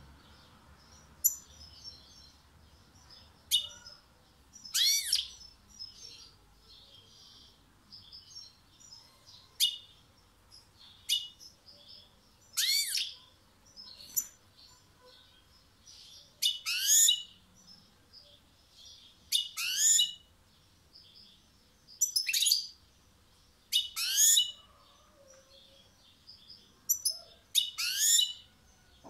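European goldfinch singing: a quiet, high twitter runs on, broken every two to three seconds by loud short phrases of notes that sweep down in pitch.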